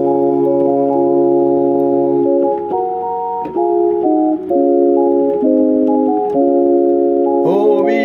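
Electronic keyboard on an organ sound playing held chords that change every second or so. A voice starts singing again near the end.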